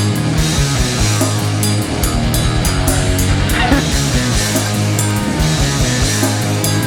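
Rock music with a steady drum beat and a sustained bass line.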